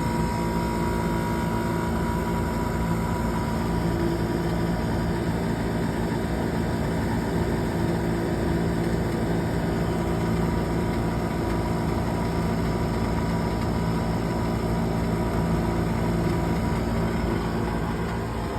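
Furnace buzzing steadily: a constant hum of several steady tones over the even rushing noise of the running unit, easing a little in level near the end.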